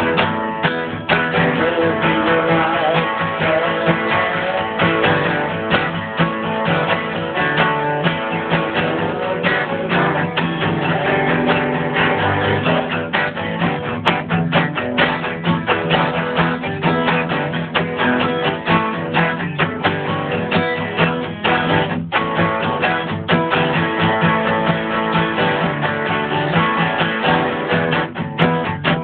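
A guitar being played, a steady run of plucked and strummed notes without a break.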